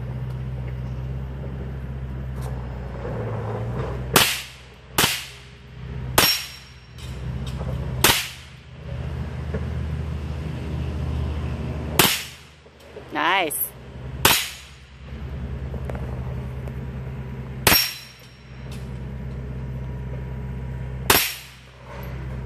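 Rifle shots, eight in all, fired one at a time at uneven intervals of one to four seconds. Each is a sharp crack that dies away quickly.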